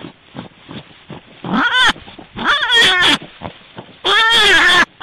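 A series of high, wavering animal calls: two shorter cries, then a longer, louder one near the end that falls in pitch.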